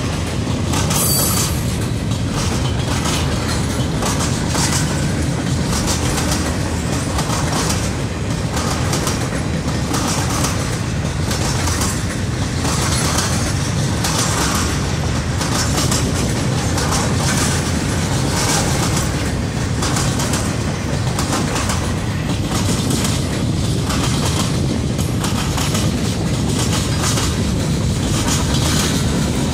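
Freight train cars rolling past close by: a steady rumble of steel wheels on rail, with a repeating clickety-clack as the wheelsets cross rail joints.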